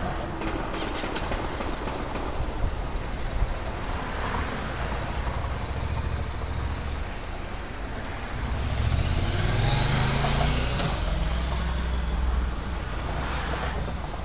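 A car driving by on the street, its engine speeding up with rising pitch and tyre hiss, loudest from about nine to twelve seconds in, over a steady low engine rumble.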